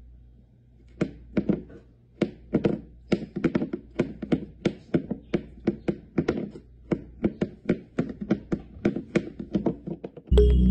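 A ceramic bowl knocking and rocking on a wooden floor as a cat paws at it: a long run of quick, irregular taps, about three or four a second. Loud music starts just before the end.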